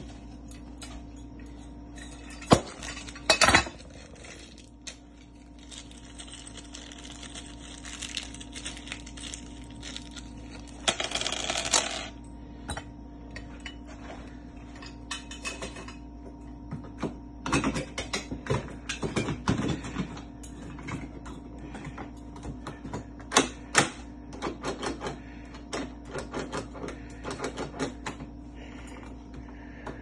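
Irregular sharp metal clicks and clinks of a locksmith's tools and lock hardware being handled at a door, with a short rasping noise about eleven seconds in, over a steady low hum.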